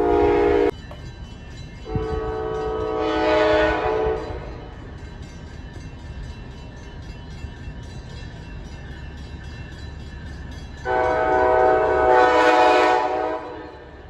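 Passenger train horn sounding a chord of several notes: a short blast that cuts off abruptly, then two long blasts several seconds apart, over the low rumble of the train.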